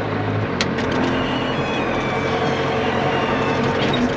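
John Deere tractor engine running steadily, with a sharp click about half a second in.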